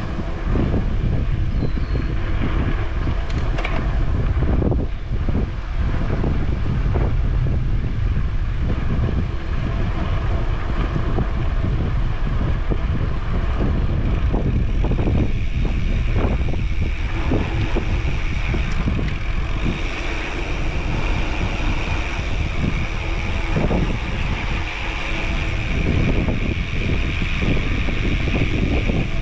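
Wind buffeting the microphone on a moving bicycle, a steady low rumble mixed with tyre noise on asphalt. About halfway through, a steady high-pitched hiss joins in.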